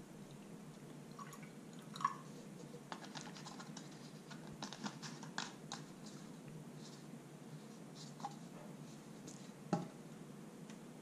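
Faint clicks and taps from handling a plastic bottle of pH 4.0 calibration solution and its cap: a ringing tap about two seconds in, a quick run of small clicks in the middle, and a louder knock near the end as the bottle is set down on a stone countertop.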